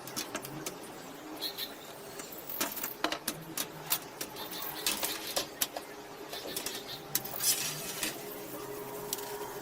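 Irregular small clicks and taps of hard objects being handled, thickest through the middle, over a faint steady background hum.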